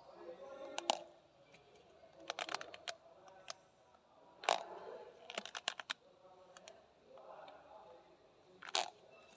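Handling noise from fingers working the pleats of a used paper oil-filter element: scattered sharp clicks and light crackles that come in small clusters every second or two.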